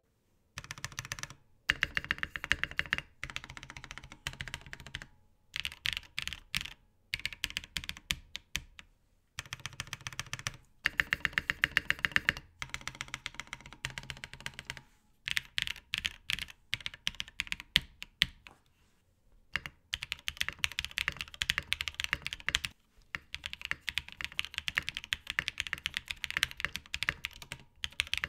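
Typing on a mechanical keyboard with L&F POM linear switches: quick runs of clacking keystrokes in bursts of a few seconds, with short pauses between them. In part of the typing the switches sit on VLKBD foam tripods meant to damp the higher-pitched noise, and in part they are bare.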